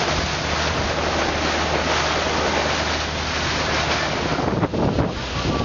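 Steady rush of river water and wind from a moving boat, over a low engine hum. About four and a half seconds in, wind starts buffeting the microphone in gusts.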